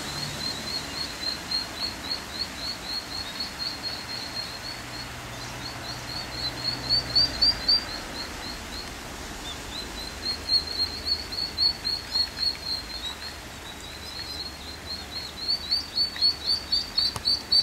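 Ducklings peeping: high, rapid and evenly spaced, a few peeps a second, in runs with short breaks. They are a brood without their mother, calling to each other.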